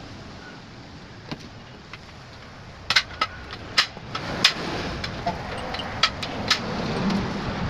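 Irregular sharp taps and clicks of hand tools at work, about six of them in the second half, over a low background noise.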